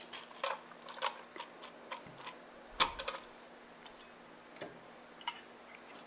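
Light clicks and taps of baking items being handled and set down on a cloth-covered table, a dozen or so scattered through, the sharpest about three seconds in. A faint steady hum runs underneath.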